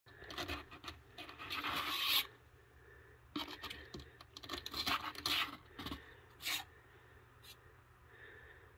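Kitten claws scratching and scraping at the rim of a cardboard box, in two spells of scrabbling, then a brief scrape and a short click near the end.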